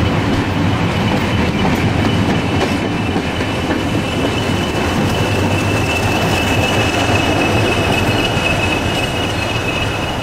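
Passenger train passing close by: coaches rolling over the rails, and a steady high-pitched whine that grows stronger in the second half. Near the end the rear locomotive, a BR Class 20 diesel, goes past.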